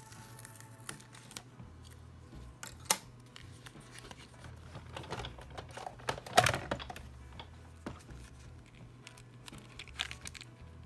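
Sizzix Big Shot die-cutting machine being worked: scattered clicks and knocks as the cutting plates, metal die and cardstock are handled, with a louder stretch of crunching about five to seven seconds in as the plate sandwich is cranked through the rollers. Near the end, paper rustles as the die-cut gold cardstock is handled.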